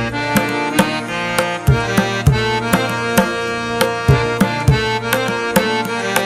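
Background music: a steady hand-drum beat of about two strokes a second, some low strokes bending in pitch, under a sustained melodic instrument.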